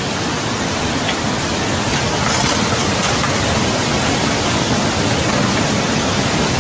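Loud, steady rush of a flash-flood torrent of muddy water pouring down a street, an even noise with no pitch.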